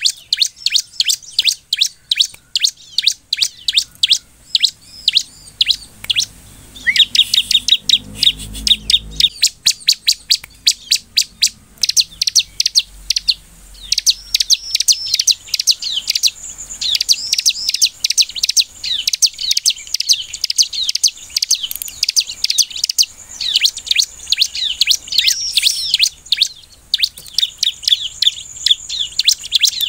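Bar-winged prinia (ciblek) singing: a rapid, loud string of sharp, high chirps, many per second, in long bursts broken by brief pauses.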